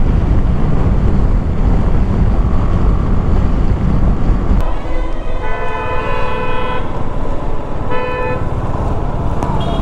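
A vehicle horn honks in traffic: one long steady honk about five seconds in and a short one about three seconds later, over the steady low rumble of the ride.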